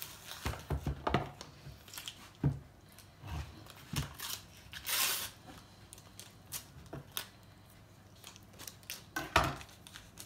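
A knife cutting through a block of butter and knocking on a chopping board in short sharp taps, with the butter's wrapper crinkling and tearing as it is peeled back about five seconds in.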